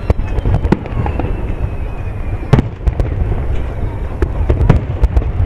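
Aerial fireworks shells bursting: an irregular string of sharp bangs and cracks, the strongest near the start, about two and a half seconds in and near the end, over a continuous low rumble.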